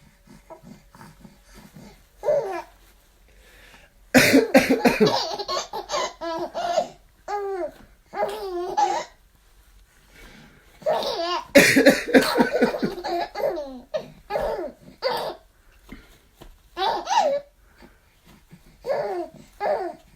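An adult man coughing twice, about four seconds in and again about eleven seconds in. Each cough is followed by a baby's laughter, with baby babbling and giggles in between and near the end.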